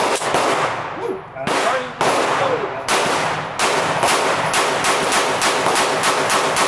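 HK VP9 9mm pistol firing: a few separate sharp reports in the first three seconds, then a rapid string of shots, about four or five a second, from about halfway through.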